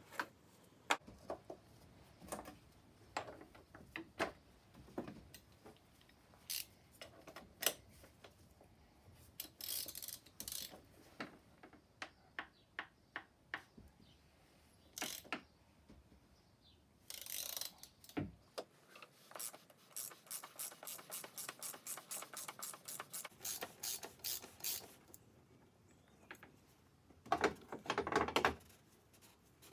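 Ratchet wrench clicking as it undoes the oil filter housing cap on a Volvo five-cylinder diesel engine: scattered clicks at first, then a fast, even run of ratchet clicks lasting several seconds. Near the end comes a brief louder rustle of handling.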